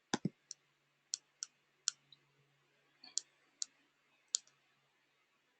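Computer key and mouse-button clicks: about nine sharp, unevenly spaced clicks, over a faint low hum.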